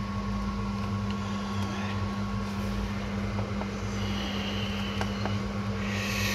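A steady low electrical hum runs throughout, with a few faint clicks and a short rustle as the battery tester's clamps are fitted onto the battery terminals.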